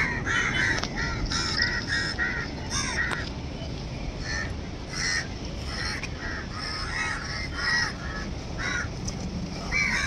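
Several crows cawing over and over, calls overlapping, thickest in the first three seconds and then coming more sparsely.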